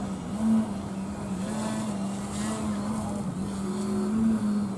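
A radio-controlled aerobatic airplane's propeller runs at a steady pitch while the plane hangs nose-up in a hover. The pitch lifts briefly with throttle bursts about half a second in and again near the end.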